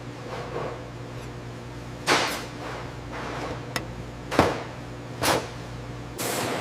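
Steady low mechanical hum with a few short, sudden knocks, the loudest about two and four and a half seconds in. Near the end, a steady rushing noise sets in.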